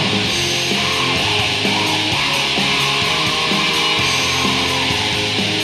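Atmospheric black metal recording: a dense wall of distorted electric guitars playing steadily and loudly, with no break.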